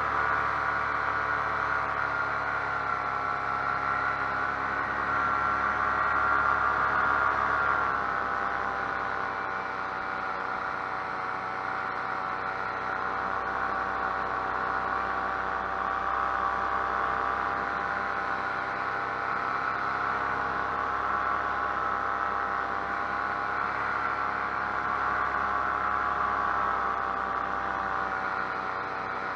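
Paramotor engine and propeller running steadily in flight, a loud droning hum. About eight seconds in it eases to a slightly lower, quieter note and holds there.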